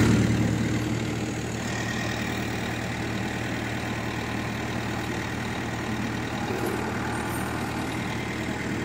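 Kartar combine harvester's diesel engine running steadily with a low, even hum.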